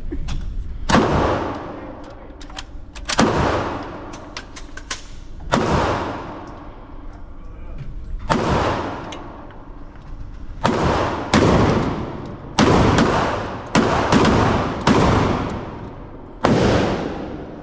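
Gunshots from a shoulder-fired gun with heavy recoil: about ten loud shots at uneven intervals, some in quick pairs, each trailing a long echo. A few fainter cracks fall between them.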